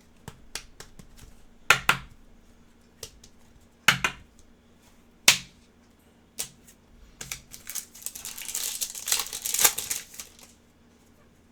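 Trading cards and their packaging being handled: a few sharp clicks and taps, the loudest about two, four and five seconds in, then about three seconds of crinkly rustling near the end.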